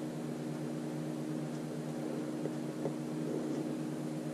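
Steady low mechanical hum of room noise, a drone made of a few held tones, with a couple of faint light taps in the middle.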